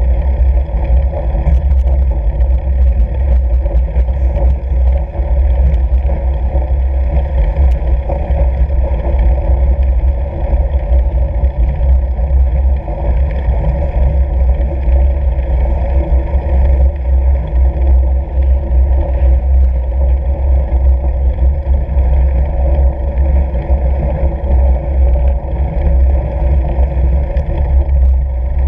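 Wind rushing over a bike-mounted camera's microphone, with fat-bike tyres rolling over packed snow on lake ice: a steady, loud low rumble that flutters constantly.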